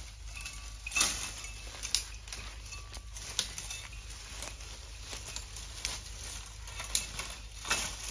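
Dry bamboo leaves and sticks crackling and rustling as they are pulled from the base of bamboo clumps and trampled underfoot, with several sharp snaps scattered through.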